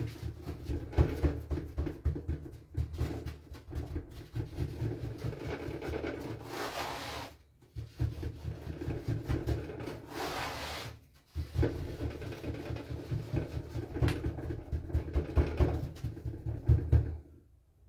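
Hands kneading and pressing flatbread dough on a floured board: a quick, uneven run of soft thuds and rubbing, with two brief hissing rubs. It pauses twice for a moment and stops just before the end.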